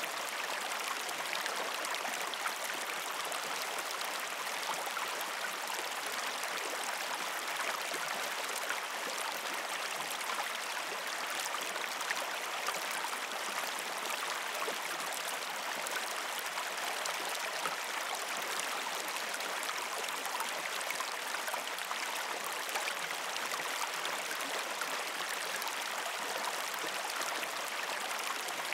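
Steady, even running-water noise, with a few faint ticks now and then.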